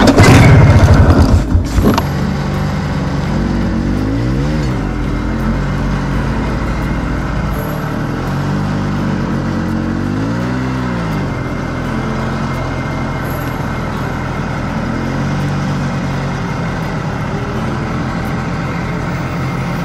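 Yamaha snowmobile engine running, revving up and back down twice, about four and ten seconds in, then holding a steady note. Loud knocks and rumbling fill the first two seconds.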